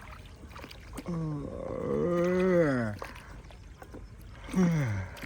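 A person's voice: a long drawn-out call about a second in that rises and then falls in pitch, and a shorter falling call near the end, with faint scattered knocks in between.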